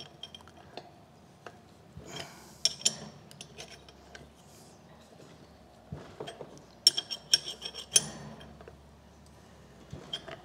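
Metal-on-metal clinks and taps of a spanner working the expanding collet of a blind bearing puller, tightening it inside a wheel bearing. They come in two bunches, a couple of seconds in and again about seven seconds in, the later bunch the loudest.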